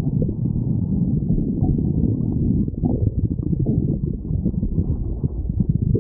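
A person's stomach growling: a continuous low, gurgling rumble.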